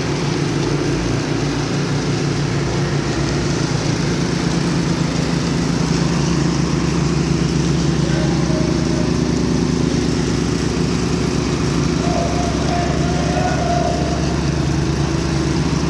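Concrete power trowel's small engine running steadily.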